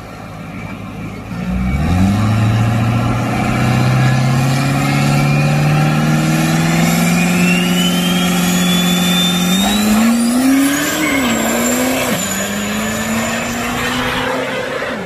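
Diesel pickup truck launching down a drag strip at full throttle. The engine note climbs steadily while a high turbo whistle rises with it. The pitch breaks twice as it shifts gears, then keeps climbing as the truck pulls away.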